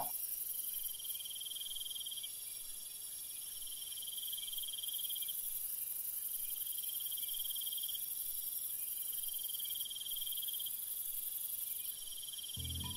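Insect trilling: a high, even trill that comes in about five runs of a second and a half to two seconds each, with short pauses, over a steady very high hiss.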